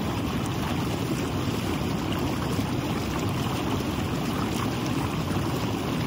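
Jacuzzi jets running: a steady rush of bubbling, churning water.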